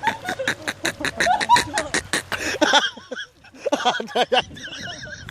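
Excited laughter and short shouted exclamations from several people, in quick bursts, with a brief lull about three seconds in.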